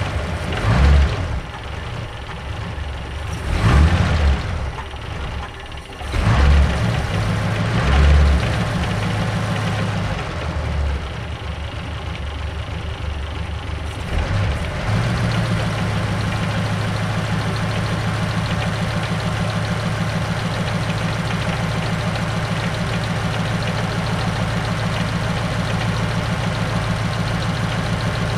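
1951 Mercury's 255 cubic-inch flathead V8 running, revved up in several surges over the first eight seconds or so, then settling into a steady idle from about fifteen seconds in. The idle is uneven, which the owner calls "all wonk", with the engine newly running again after a fuel-delivery problem.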